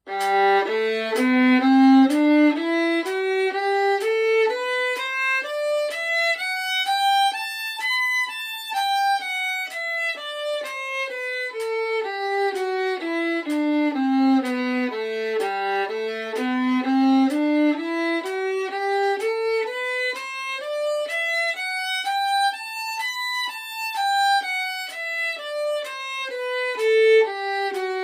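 Solo violin playing a G major scale legato, with smooth, connected separate bows. It climbs from the low G to the top and back down twice, at about two notes a second.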